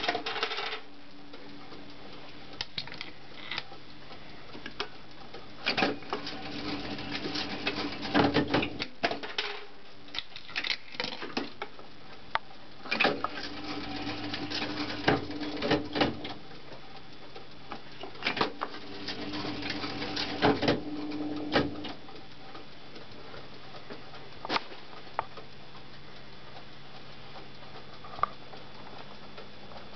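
Carfield Starship II electro-mechanical fruit machine working through its play cycle: three spells of motor hum under a dense clatter of relay and switch clicks as the reels spin and stop. Between and after them come single clicks and ticks.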